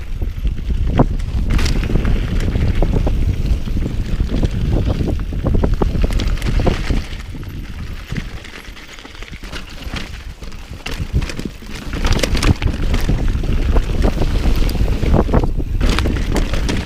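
Mountain bike riding a rough trail, heard from a camera mounted on the rider: wind buffets the microphone over tyre rumble, with many quick clicks and knocks from the bike over the ground. It goes quieter about eight seconds in and picks up again near twelve seconds.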